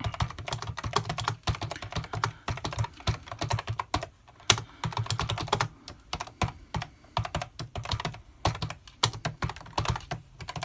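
Keys clicking on an AlphaSmart Pro's keyboard, typed unevenly by hunt-and-peck, with runs of keystrokes broken by short pauses.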